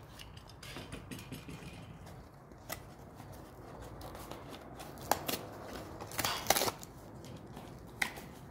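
A small cardboard box and its packaging being handled and opened: rustling and scraping with scattered sharp clicks, the loudest cluster about six seconds in.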